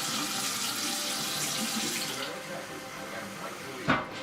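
Kitchen tap running, the water stopping about two seconds in; near the end a single sharp clink, like a utensil or dish knocked.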